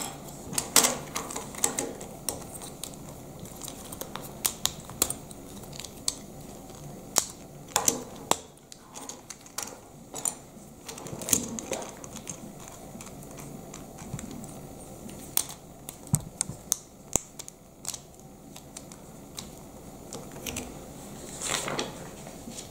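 Lego plastic pieces being handled and pressed together on a wooden tabletop: irregular small clicks and clatter as tracks are fitted over the wheels of a small tracked chassis.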